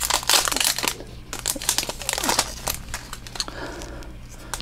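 Plastic trading-card booster-pack wrapper crinkling as the cards are pulled out and handled: a quick run of short crackles over the first couple of seconds, then quieter rustling.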